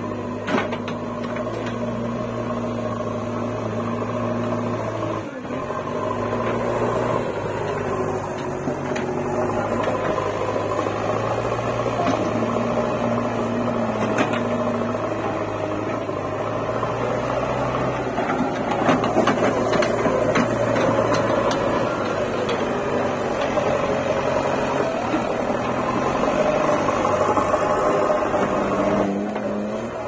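JCB 3DX backhoe loader's four-cylinder diesel engine running under load while the machine drives and works its front loader, the engine note stepping up and down with the throttle, with a few short clanks.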